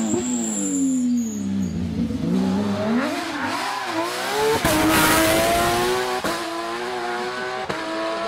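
Porsche rally car engine: revs falling, then climbing hard, with sharp gear changes about four and a half, six and seven and a half seconds in while the engine stays high in pitch.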